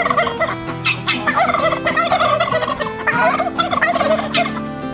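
Domestic turkey toms in strut display gobbling in about three rapid, rattling bouts.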